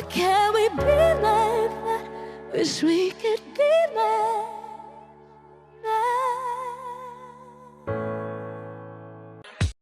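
A female singer holding wordless, melismatic notes with wide vibrato over sustained piano or keyboard chords. The song ends on a final held chord that cuts off abruptly near the end.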